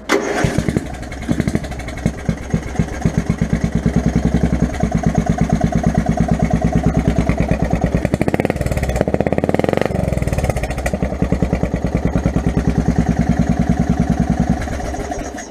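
Offroad riding lawn mower engine, started from a momentary push-button switch wired to the starter solenoid, running with rapid, regular firing pulses. The sound changes briefly around the middle and dies away near the end.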